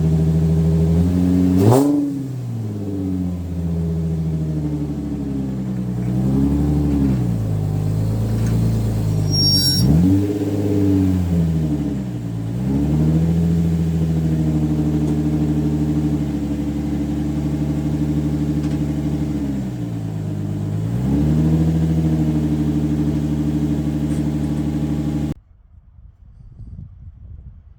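Nissan 350Z's 3.5-litre V6 engine running, its pitch holding steady for stretches and dipping and climbing again several times as the revs change. It cuts off abruptly near the end.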